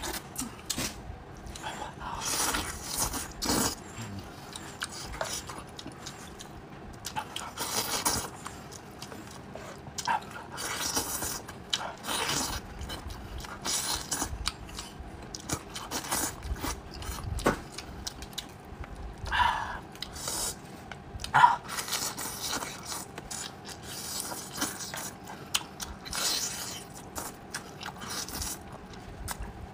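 Close-miked eating of a cooked sheep's head: irregular wet chewing, sucking and smacking as meat is bitten and pulled off the bones, with tearing of meat by hand. Two louder mouth smacks come about two-thirds of the way through.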